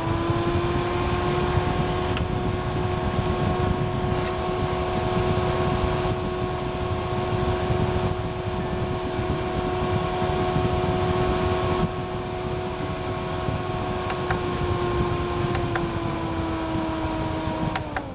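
Small electric fan motor of a Koko-hie personal cold-air fan running at speed, a steady whine over a rush of air. Near the end it is switched off and winds down, the whine falling in pitch.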